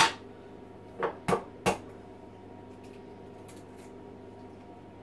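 An egg rapped sharply on the rim of a cup to crack it, followed about a second later by three more quick knocks and clinks of crockery, then a few faint taps.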